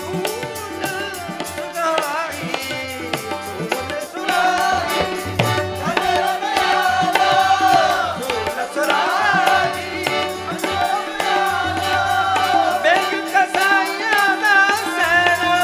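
Sikh kirtan: a man singing a devotional hymn over harmonium, with tabla and a fast, even beat of percussion.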